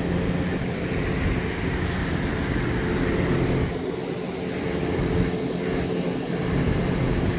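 Steady mechanical hum of a running machine: several low tones over a rumble, unchanging throughout.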